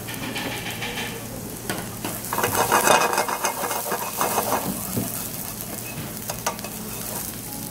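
Chopped onion sizzling in oil in a frying pan, with wooden chopsticks stirring and scraping it across the pan. The stirring is loudest from about two and a half to four and a half seconds in.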